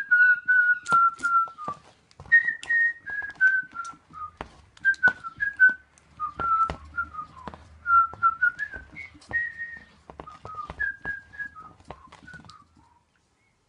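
A person whistling a meandering tune in short notes and slides, with many small sharp clicks and taps of handling throughout. The whistling stops shortly before the end.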